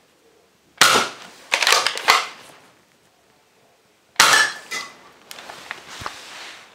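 NERF Commander Elite 2.0 pump-action foam-dart blaster firing twice, about three and a half seconds apart. Each sharp pop is followed by plastic clacks as the slide is pumped to prime the next dart.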